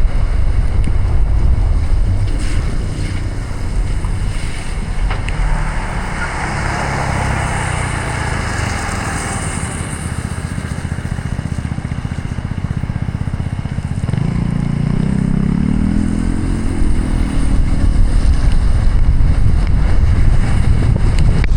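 A car driving through heavy rain: a loud, steady rumble of rain and road noise, with an engine note rising in pitch about fourteen seconds in as the vehicle speeds up.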